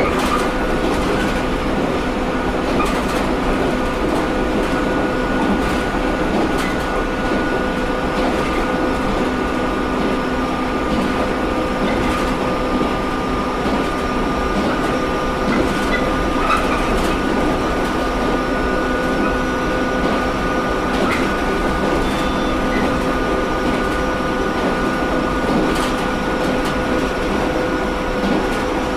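JR Kyushu 713 series AC electric multiple unit running at a steady speed, heard from inside the car: an even rumble of wheels on track with a constant hum of several steady tones from the drive equipment, and a few light clicks now and then.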